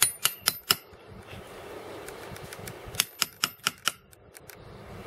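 A small hammer tapping a thin steel rod (nail or screwdriver) into a birch trunk to punch a tap hole for birch sap. The sharp taps come in two quick series, about four a second: four taps at the start, then five more about three seconds in.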